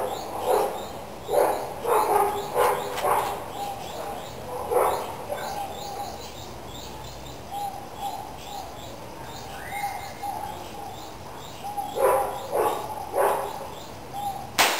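Birds chirping and calling repeatedly, in short calls and high chirps. Near the end comes one loud, sharp crack: a shot from a Mendoza 4.5 mm Flobert derringer.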